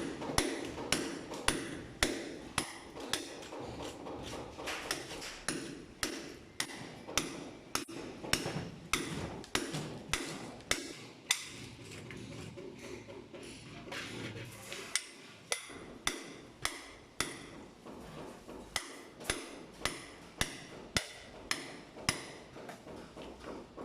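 Hammer blows struck steadily, about two a second, sharp and slightly ringing, with a brief pause about halfway through before they resume.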